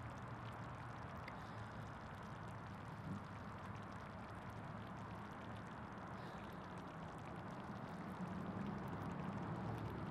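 Pot of bean and ground-meat chili simmering in a Dutch oven: a steady soft bubbling with faint small pops.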